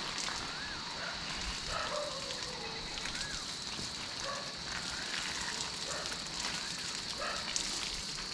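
Water from a garden hose spraying onto leafy shrubs and soil, a steady spray with scattered droplet ticks.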